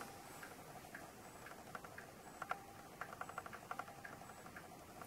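Faint ticking, about two ticks a second, most likely from a clock, mixed with light clicks of tweezers and a toothpick handling a small plastic numeral.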